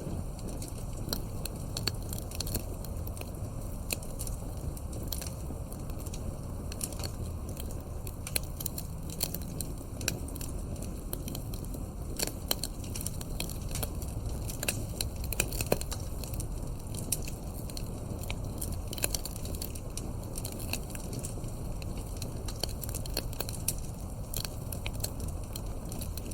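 Wood fire crackling: frequent, irregular sharp snaps and pops of burning logs over a steady low rumble.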